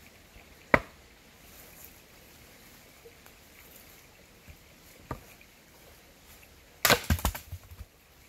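Splitting maul chopping well-seasoned hard oak on a chopping block, which is like hitting concrete. There is a hard knock about a second in, a weaker knock around five seconds, and a quick run of several knocks and clatters near seven seconds.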